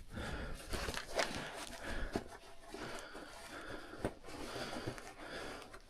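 Scuffing footsteps and small knocks on rock, with breathing, as someone moves through a mine tunnel.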